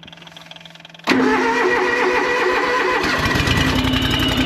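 Small utility tractor started by jumping the contacts on its starter solenoid: the starter cranks suddenly about a second in, and about two seconds later the engine catches and runs with an even low pulsing.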